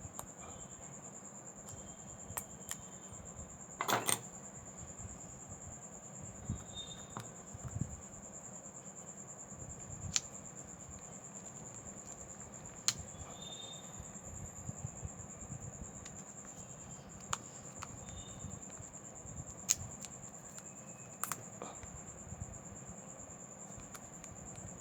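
Scattered small clicks and taps of tools and parts being handled while a smartphone is opened for a display replacement, one sharper click about four seconds in, over a steady high-pitched whine.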